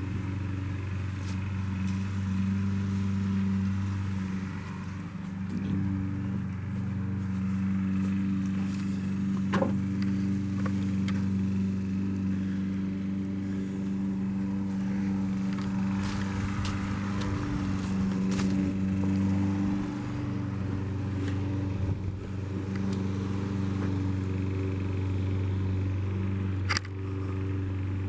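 Small backhoe's engine running at a steady idle, with a few scattered clicks and knocks.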